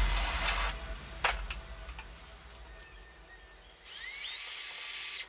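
A small electric drill motor runs in a short burst about four seconds in, its whine rising as it spins up, then stops sharply.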